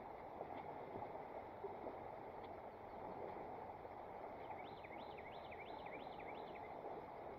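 A songbird sings a quick run of about seven up-and-down slurred whistles about halfway through, over a steady low outdoor rush.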